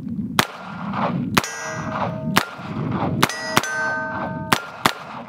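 Rock Island Armory AL22 .22 LR revolver firing seven shots, about one a second and closer together near the end, each hit answered by a steel target ringing with a bright clang.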